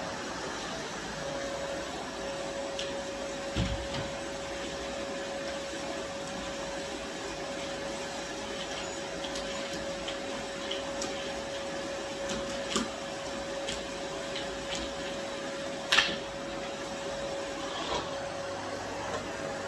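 Vacuum cleaner motor running steadily with a constant hum, broken by a few knocks and clicks. The loudest is a sharp click about sixteen seconds in.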